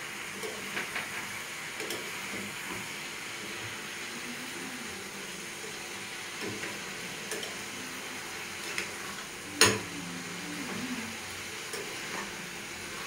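Meat sizzling in hot oil in a pan while a metal ladle stirs it, with small scrapes and knocks of the ladle against the pan. One sharp clack rings out about ten seconds in.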